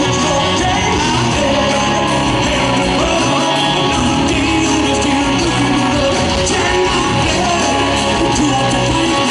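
Live rock band playing loudly in a concert hall: electric guitars, bass and drums, recorded from the audience.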